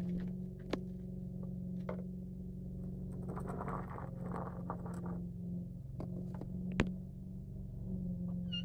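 Kitten growling low and continuously while guarding its food, with a couple of short breaks near the end. A few sharp clicks and a brief rustling scrape come in the middle.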